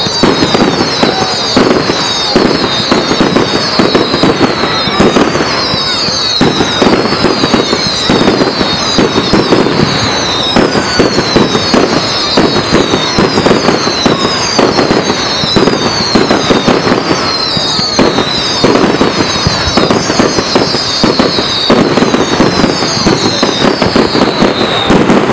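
Fireworks display in a sustained barrage: a dense, unbroken run of sharp bangs and crackles, with a string of high, falling whistles repeating over and over.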